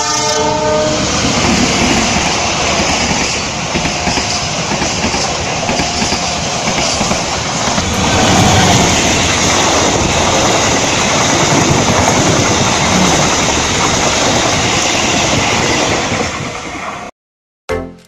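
Diesel-hauled passenger train sounding its multi-tone horn briefly at the start, then passing close by with its engine and wheels on the rails making a loud steady rumble. The sound cuts off suddenly near the end and music with a beat starts.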